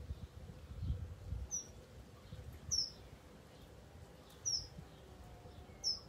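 A garden bird giving short, high, slightly falling chirps, four of them spaced a second or more apart, over a soft low rumble.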